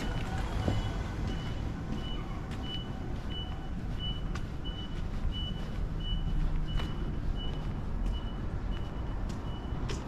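An electronic warning beeper, of the kind used as a vehicle reversing alarm, repeating a short high beep about twice a second, over a low rumble of street traffic.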